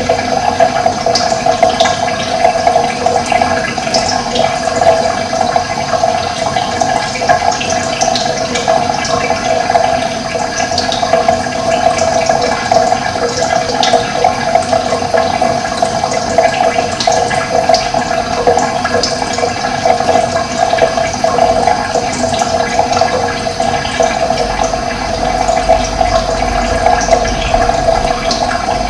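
Steady rush of running water, with birds chirping briefly now and then above it.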